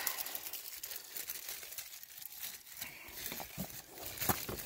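Scattered crinkling and crackling handling noise, with a sharper crackle about four seconds in.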